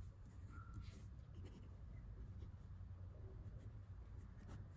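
A pen writing on notebook paper: faint, irregular scratching strokes over a low steady hum.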